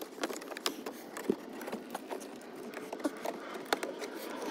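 Plastic dash trim panel being handled and pried loose, with irregular small clicks and creaks from its plastic clips.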